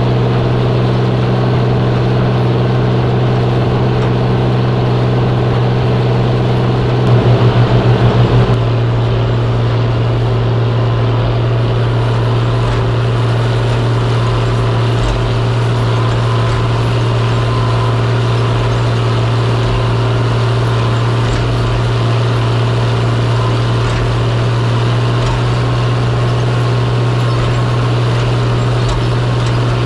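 Farm tractor's diesel engine running steadily under load as it pulls across the field, a deep continuous drone. A brief throbbing pulse comes about seven seconds in.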